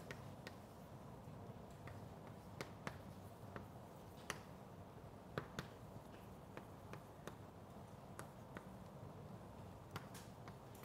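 Chalk tapping on a blackboard while writing: faint, irregular sharp clicks, a dozen or so, spaced unevenly.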